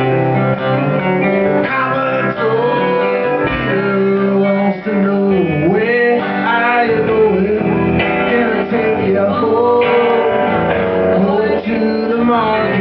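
Live band music led by guitars, strummed chords under a lead line with bending notes.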